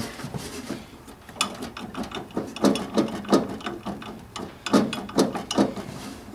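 Air-cooled VW Beetle engine's cooling fan being turned by hand with a wrench on its pulley nut, giving irregular clicking and rattling from inside the fan housing: something in there is loose.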